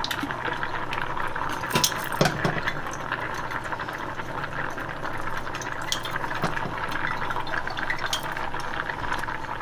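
Stovetop cooking: a steady bubbling, crackling sizzle from the boiling rice pot and the oil heating in the wok, with a few light clinks of utensils on the pans.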